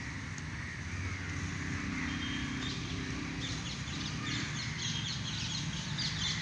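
Birds calling in the trees over steady outdoor background noise. From about halfway through, rapid high chattering calls repeat densely.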